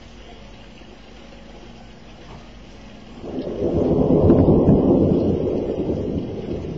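Rolling thunder: a low rumble swells about three seconds in, peaks a second later and slowly fades.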